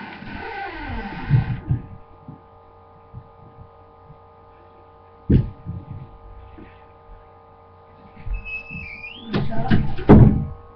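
A steady electrical hum, with several falling tones in the first second or two and a single sharp knock about five seconds in. Near the end a door handle rattles and the door is knocked and opened in a loud clatter.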